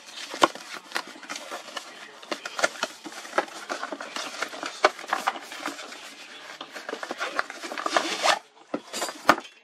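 Cardboard and plastic packaging of a GoPro Hero 9 retail box being torn open and handled: an uneven run of scrapes, rubs and sharp clicks, busiest just before the end.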